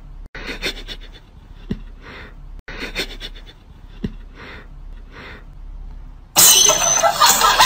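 A cat sniffing at a sock, in short runs of quick sniffs about once a second. Near the end a much louder harsh noise comes in and drowns them out.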